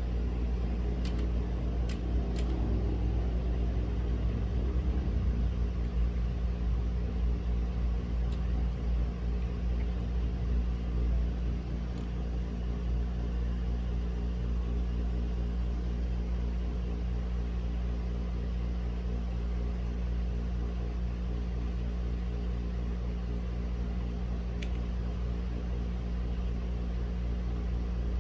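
A steady low mechanical rumble with a hum, a little louder for the first dozen seconds. A few sharp, isolated clicks fall over it, several of them in the first few seconds.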